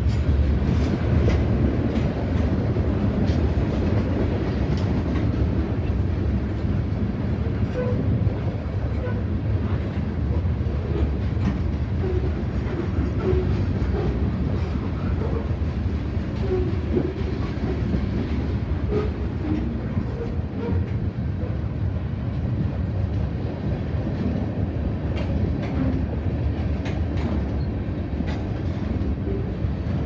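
Freight train cars rolling past: a steady rumble of steel wheels on rail, with scattered clicks and clanks from the wheels and couplers.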